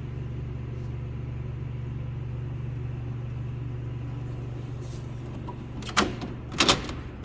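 Steady low hum throughout, then near the end a few sharp metal clanks and rattles as a Snap-on tool chest drawer is shut and the next drawer is pulled open.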